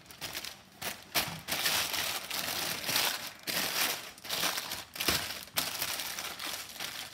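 Crumpled parchment paper crinkling and rustling as hands press and shape it into a round banneton basket, in irregular bursts with sharp crackles.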